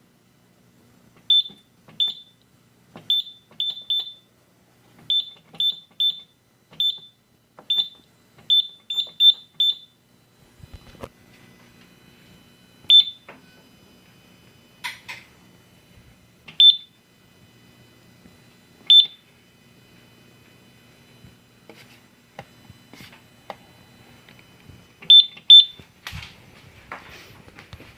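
Simplex 4100U fire alarm control panel giving short, high key-press beeps at irregular intervals as its menus are stepped through. The beeps come in a quick run of a dozen or so, then singly with longer gaps, then a pair near the end. A few soft clicks fall among them.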